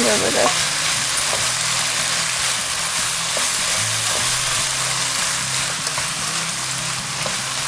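Shredded cabbage, carrot, capsicum and chicken sizzling steadily in a wok over a high gas flame, stirred and turned with a spatula.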